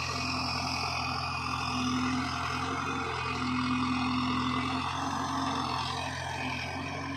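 Diesel engines of a JCB 3DX backhoe loader and Powertrac tractors running steadily, a constant low hum, while the backhoe works its arm to load soil into a tractor trolley.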